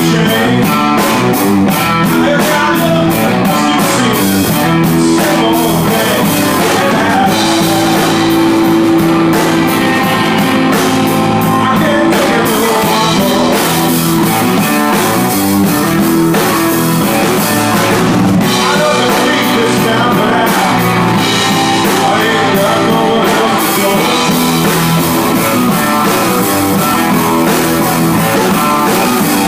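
Live rock band playing: electric guitar over a drum kit, with steady cymbal strokes.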